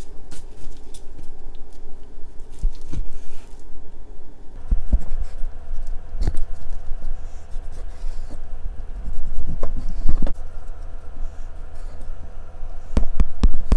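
Cleaver chopping boneless chicken thighs into bite-sized pieces on a wooden cutting board: irregular knocks of the blade meeting the board as it cuts through the meat, with several clustered strokes about halfway through and near the end.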